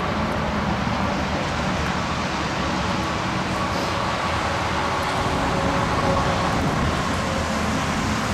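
Steady motor-vehicle noise: an even low rumble with a faint steady hum, without breaks or sudden events.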